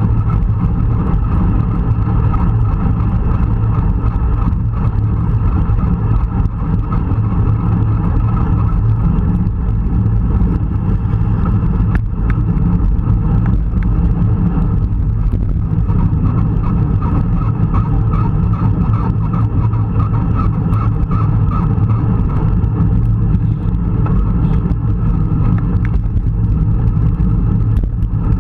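Steady rush of wind on the microphone of a camera riding on a road bike at speed, with the hum of the bike's tyres on tarmac.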